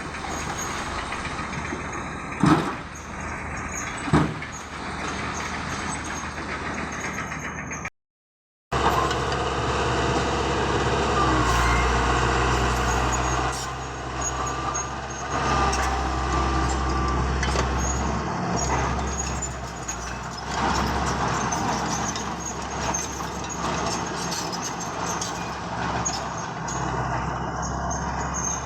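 Heavy diesel construction machinery running, with two sharp clanks a couple of seconds apart. After a brief cut, a louder and deeper engine rumble follows, with some squealing over it.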